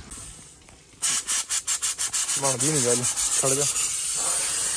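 Water and air spurting from the valve of a tractor's water-ballasted rear tyre as the water is drained: from about a second in, a rapid sputter of about nine spurts a second that settles into a steady hiss.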